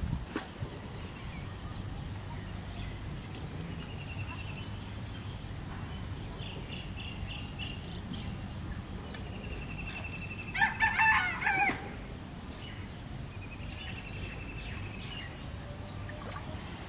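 A rooster crows once, about ten and a half seconds in, a single call of about a second. A few faint, high, short chirping trills come and go around it.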